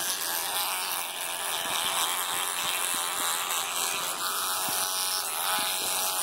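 Electric toothbrush running with a steady buzz, its head in a capuchin monkey's mouth against his teeth.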